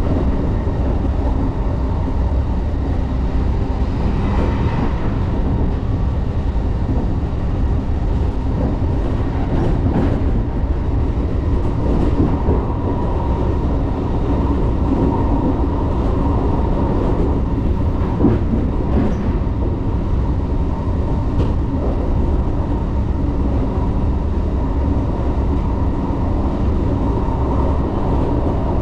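Running sound heard from beside the door inside a JR 381 series tilting electric train: a steady rumble of wheels on rail with a faint constant hum. A few sharp clunks from the track come about ten, twelve, eighteen and nineteen seconds in.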